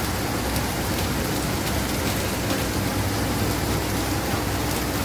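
Heavy monsoon rain falling steadily, a constant hiss with faint drop clicks.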